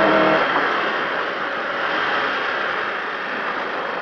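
Opel Kadett GT/E rally car heard from inside the cabin. The engine's pitched note drops away about half a second in as the car comes off the throttle for a tight hairpin, leaving a steady rumble and hiss of the car rolling over snowy gravel.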